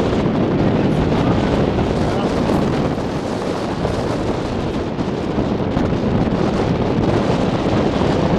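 Wind buffeting the camera microphone: a steady rushing noise.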